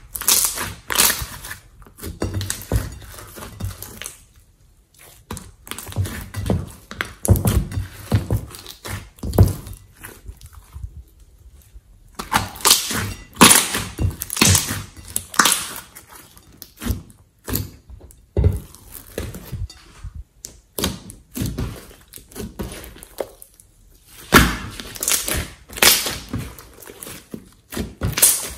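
Hands squeezing and pressing a large mass of glossy slime, which gives off irregular wet pops and clicks in quick clusters, with brief quieter pauses between handfuls.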